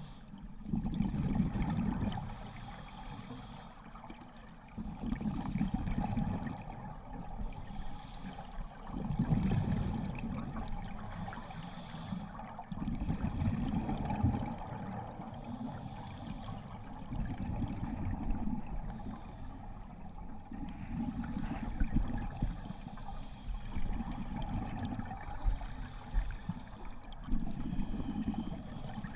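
Scuba diver breathing through a regulator underwater, heard through the camera's housing: a hissing inhale, then a low rumble and gurgle of exhaled bubbles, repeating every four to five seconds.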